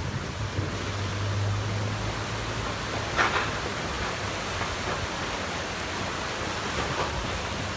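Steady rushing noise of rain-swollen floodwater in a channel. A low hum sits under it for the first two seconds, and there is a short clatter a little over three seconds in.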